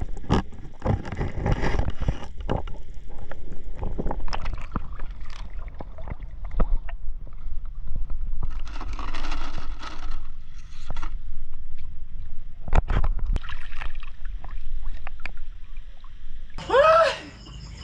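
Underwater camera sound during night spearfishing: muffled water movement with a low rumble and many irregular knocks and clicks from handling, with a patch of splashing and bubbling about nine seconds in as the camera comes up near the surface. Near the end it cuts abruptly to a series of falling, whistle-like tones.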